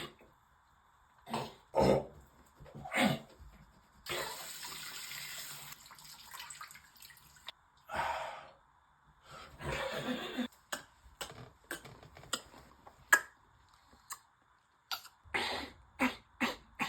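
A person repeatedly coughing, clearing the throat and spitting in short loud bursts, with about two seconds of steady running tap water about four seconds in.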